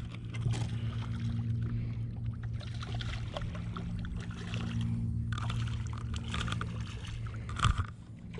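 A hooked carp splashes at the surface as it is reeled to the side of a boat, with small clicks over a steady low hum and a thump near the end.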